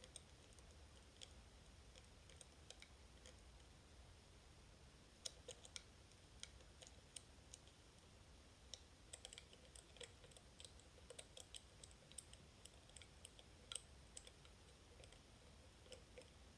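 Faint, irregular small clicks and ticks from a pick working the pin and magnetic tumblers of a Miracle Magnetic lock, picked up through a contact microphone on the vise.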